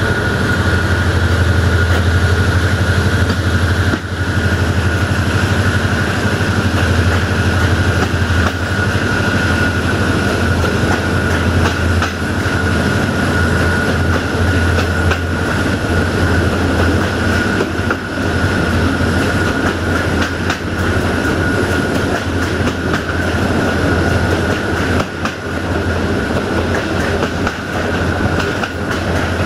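Train wheels running on the rails at speed, with a steady clickety-clack over the joints under a constant low rumble. A steady high-pitched squeal from the wheels runs throughout, fading slightly past the middle.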